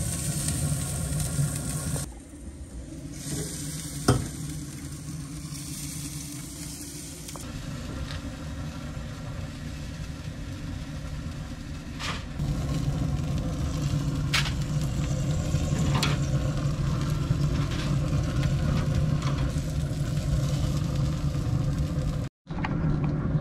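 Meat sizzling on the grates of a Pit Boss Lockhart pellet smoker over a steady low hum, with a few sharp clicks of metal tongs against the grates as the meat is lifted off.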